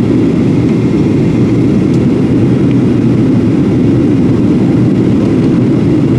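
Steady low cabin noise of a jet airliner descending through cloud: engine and airflow noise heard from inside the cabin at a window seat.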